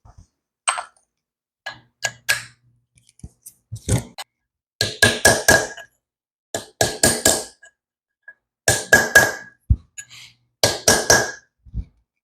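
Hammer tapping a metal grease cap onto a disc-brake rotor hub: scattered single taps at first, then quick runs of four or five strikes about every two seconds, each with a ringing metallic note.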